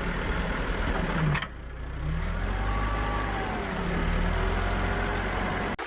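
Truck engine running with a steady low rumble, dipping briefly about a second and a half in.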